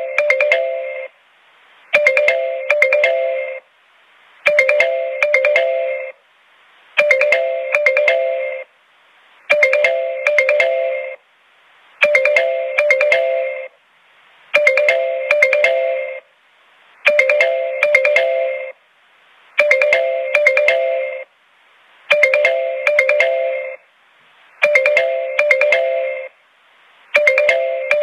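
Pinger TextFree's default incoming-call ringtone: a short melodic phrase of quick, struck-sounding electronic notes, repeated about every two and a half seconds with a brief pause between repeats.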